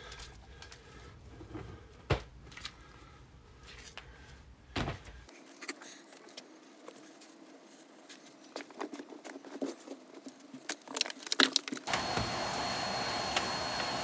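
Scattered clicks, knocks and rustles of bull terriers' claws and noses on a wooden floor and in a pile of clothes; about twelve seconds in, a steady hiss with a thin high whine starts and holds, a vacuum cleaner switching on.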